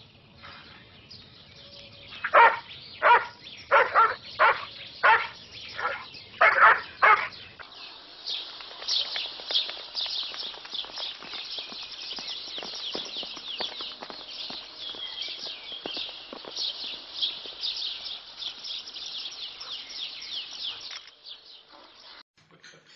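A dog barking about eight times in quick succession, followed by a long stretch of dense, high-pitched chirping that fades out near the end.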